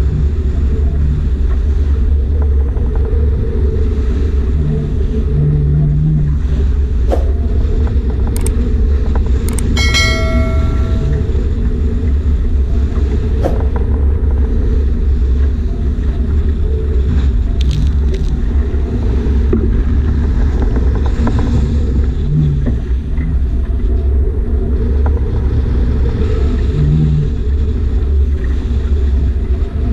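Strong wind buffeting the microphone aboard a sailboat under way in heavy weather, a steady low rumble. About a third of the way in, a brief high whistling tone sounds for a second or so.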